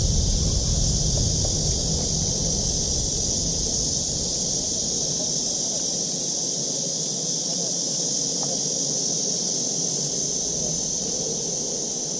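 Steady, high-pitched buzzing of an insect chorus, with wind rumbling on the microphone for the first few seconds.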